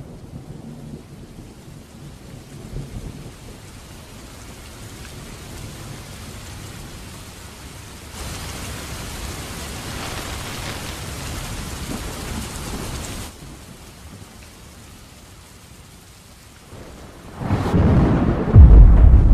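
Steady rain, growing louder for about five seconds in the middle, then a loud low rumble of thunder swelling near the end.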